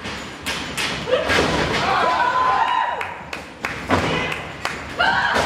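Several dull thuds and knocks from the wrestling ring, with voices shouting in between.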